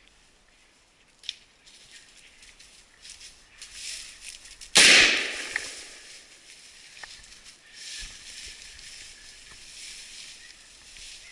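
A shotgun fires a single loud shot a little under five seconds in, its report dying away over a second or so.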